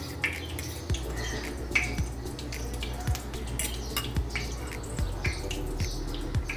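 A spoon clicking and scraping in a small steel bowl of beaten egg, with wet dripping and dabbing as a breadcrumbed cutlet is coated in the egg; light irregular clicks throughout.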